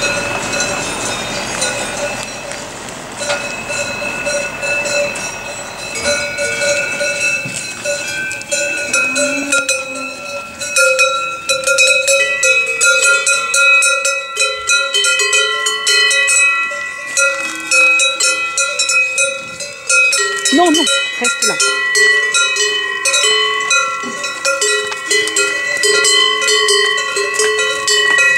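Many cowbells of different pitches ringing and clanking together as a herd of cows walks past, growing louder and denser about eleven seconds in.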